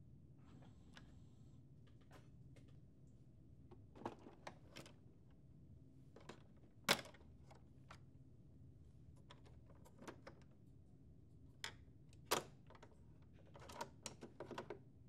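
Scattered sharp plastic clicks and snaps from a Lexmark MX72x/MX82x automatic document feeder's covers and green-latched feed roller assembly being opened and unlatched by hand, over a faint low hum. The two loudest snaps come about 7 and 12 seconds in, with a quick run of lighter clicks near the end.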